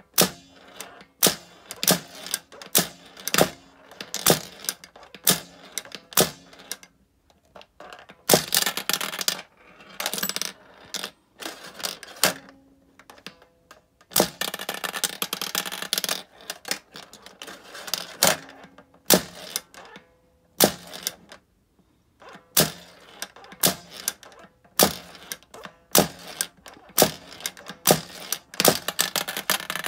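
Balls clicking and rattling through the pins and plastic case of a vintage Yonezawa Kamen Rider tabletop pachinko toy. The sound is a run of sharp clicks, with longer stretches of dense rattling about 8 and 14 seconds in.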